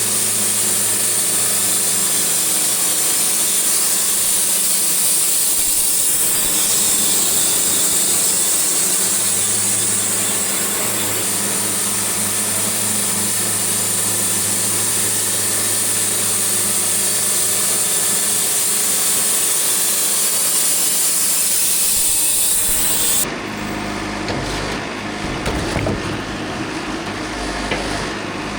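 Portable band sawmill cutting a sassafras log with a Silver Tip Turbo 7 band blade: a steady engine drone under the loud hiss of the blade in the wood. About 23 seconds in, the cutting hiss stops suddenly as the blade leaves the cut, and the engine keeps running, with a few knocks.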